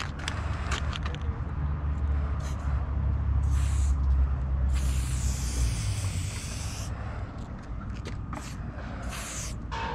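Rust-Oleum spray paint can fitted with a homemade adapter cap, hissing in short bursts with one longer spray of about two seconds in the middle. A low rumble runs underneath and fades after about six seconds.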